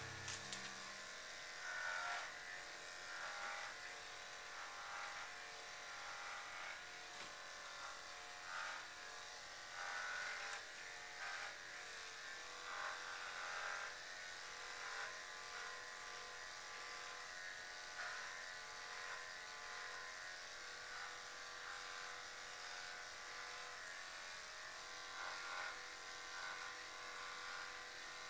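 Corded electric dog-grooming clippers running with a steady buzz while shaving a dog's coat. The tone swells briefly every second or two as the blade moves through the fur.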